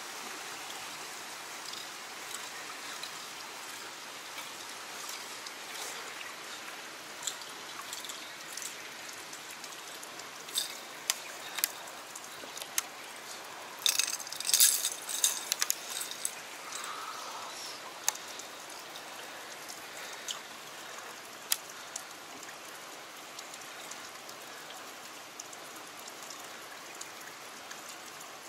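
Steady trickle of a small stream running through a rock channel. A scatter of sharp clicks and ticks from fishing tackle being handled comes about ten seconds in, densest around fourteen to sixteen seconds in, with a few more later.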